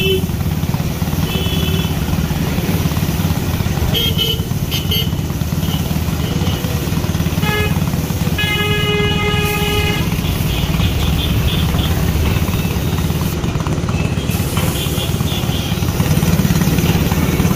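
Steady rumble of motor traffic with vehicle horns honking: a few short toots and one longer honk of about a second and a half near the middle.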